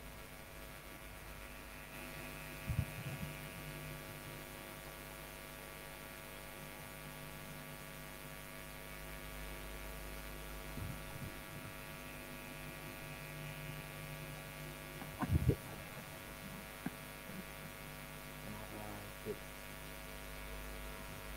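Steady electrical mains hum with many overtones. A few brief low thumps stand out, the loudest about fifteen seconds in.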